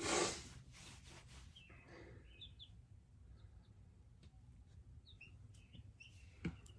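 Young chicks peeping softly in a brooder: short, high chirps now and then. A brief rustle at the start and a single sharp click near the end.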